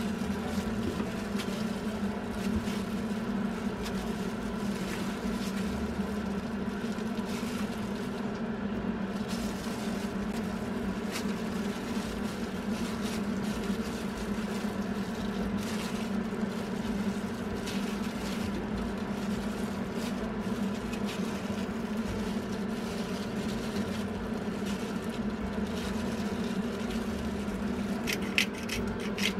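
A steady mechanical hum under faint rustling of plastic-gloved hands breaking up and kneading partly frozen minced meat in a frying pan. Near the end comes a quick run of sharp crinkles, about five a second.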